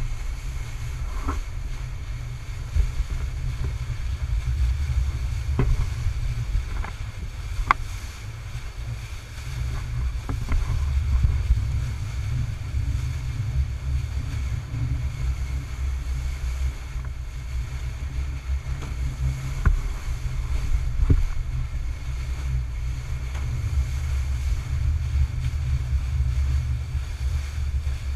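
The bow wave of a coastal cargo ship rushing and breaking as the bulbous bow cuts through open sea, under a heavy low rumble of wind on the microphone. A few brief sharp ticks stand out now and then.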